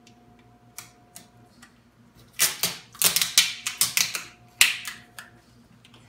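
Clear packing tape being pulled off the roll and torn, a series of short rasping rips starting about two seconds in and lasting about three seconds, after a couple of light clicks.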